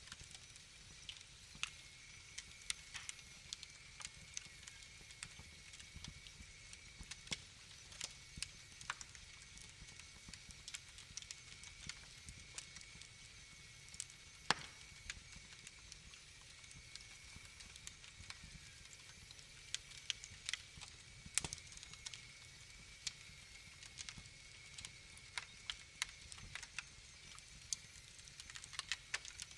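Wood fire crackling in a fireplace: irregular sharp pops and snaps over a low steady hiss, with a faint steady high tone underneath.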